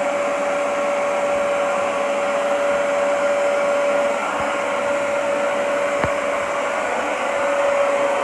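Hoover Pet Expert carpet cleaner's suction motor running steadily with a constant whine, working again now that its float ball and filter have been cleaned. A light knock sounds about six seconds in.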